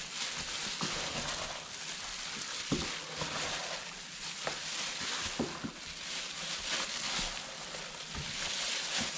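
Gloved hands mixing raw chicken wings in their marinade: a steady rustling with scattered soft knocks.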